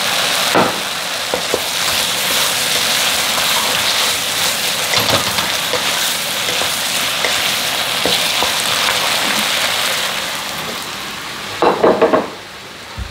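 Sliced zucchini stir-frying in a hot pan, sizzling steadily as it is stirred. About twelve seconds in there is a brief knocking, and then the sizzle dies down.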